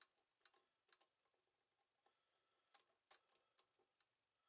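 Faint, irregular small clicks from the width-adjusting screw of a zigzag attachment being turned and handled by hand; the loudest clicks come a little under three seconds in.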